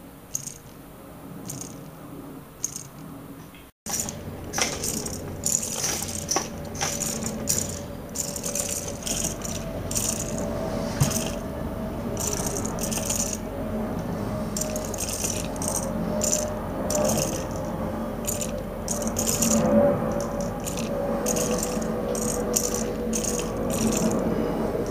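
Handmade solar-powered tin robots running, their small motors shaking wire arms and metal parts in a busy, irregular rattling and clicking over a steady hum. It gets louder about four seconds in, with several robots going at once.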